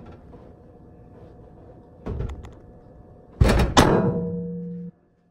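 Oven door of an electric range being shut after a dish goes in: a lighter knock, then two loud thunks close together, with a brief ring after them.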